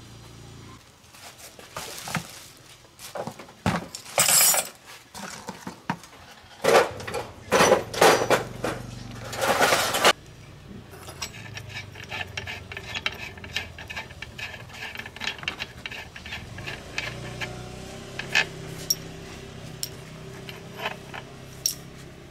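Metal tools and parts clinking and clattering as they are handled, with several louder bursts of about a second in the first half, then lighter, scattered clicks.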